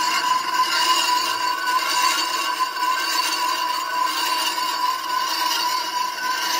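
Lathe turning a cast iron truck brake drum, the cutting tool working against the spinning drum with a steady metallic whine.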